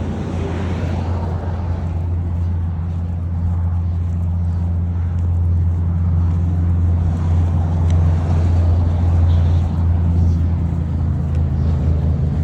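Steady low drone of a vehicle engine running, growing somewhat louder toward the middle.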